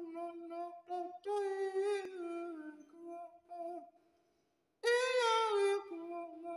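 A man's high-pitched ventriloquist puppet voice singing a melody unaccompanied, in long held notes, with a short pause about four seconds in.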